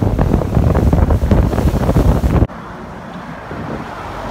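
Heavy wind buffeting the microphone on a boat moving fast across open water. It cuts off abruptly about two and a half seconds in, giving way to a quieter, steady street-traffic hum.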